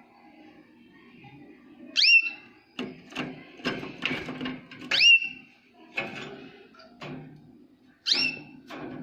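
Jaspe canary giving three sharp chirping calls about three seconds apart, each a quick falling whistle that settles on a short held high note, with scattered clicks and rustles between them.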